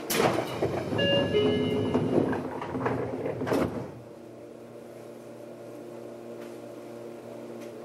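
Seibu 20000 series train doors closing at the platform: the door mechanism's noise, a short descending chime about a second in, and the doors knocking shut at about three and a half seconds. After that the car's steady electrical hum continues while it stands ready to depart.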